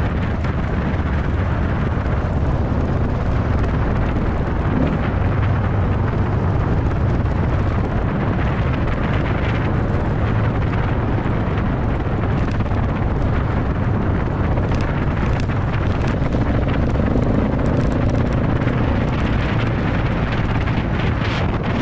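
Dual-sport motorcycle riding at a steady pace on a gravel road: engine running under wind rush on the microphone and tyre noise on the gravel.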